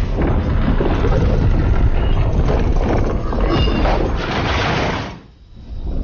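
Loud sound effects for an animated fantasy scene: a dense, deep rumble with scattered short higher sounds, mixed with music. It drops away briefly about five seconds in, then comes back.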